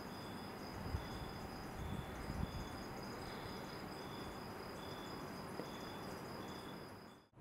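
Night insects chirping: one steady high-pitched trill with a second chirp repeating a little more than once a second over a faint outdoor hush, fading out near the end.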